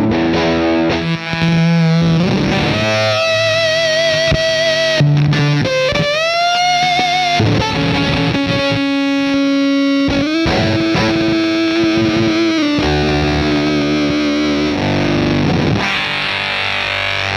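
Electric guitar played through an EarthQuaker Devices Gary fuzz and overdrive pedal, heavily distorted: riffs and long held notes with vibrato, and a note bent upward about six seconds in.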